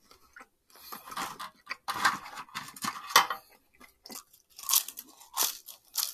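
Close-miked crunchy chewing and biting into fried Chinese takeout food, in irregular crackly crunches: a run of chewing about a second in, then fresh bites near the end.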